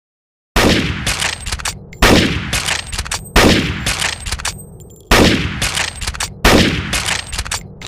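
Gewehr 98 bolt-action rifle (7.92×57mm Mauser) firing five single shots about one and a half seconds apart, each with a long echoing tail.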